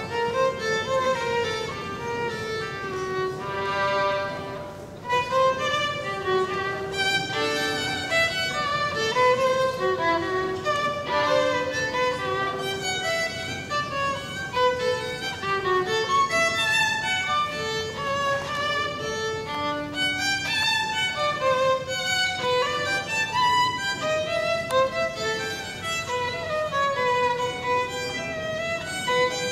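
A violin playing a quick melody of many short, bowed notes. One longer held note comes about four seconds in, followed by a brief drop just before five seconds.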